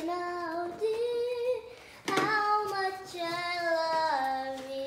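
A child singing a slow melody in long held notes that step up and down in pitch, with a short knock about two seconds in.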